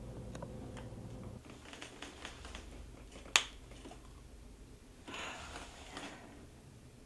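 Quiet room sounds: a low television hum cuts off about a second and a half in as the set is switched off with the remote. A few small clicks follow, then one sharp click about halfway through and a short breathy rush near the end.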